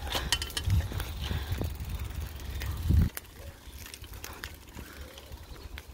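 Bicycle moving through dry undergrowth, with twigs and dead leaves crackling and scraping against the frame and wheels. A low rumble and dense clicking over the first three seconds stop abruptly, leaving lighter scattered clicks and rustling.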